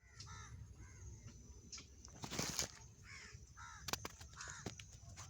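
Crows cawing faintly, a string of short caws repeated through the stretch, with a brief rustle about halfway through.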